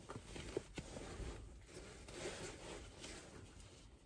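Faint rustling and handling noise as a disposable surgical face mask is put on and pressed over the nose, with the puffy jacket rustling and a few small ticks.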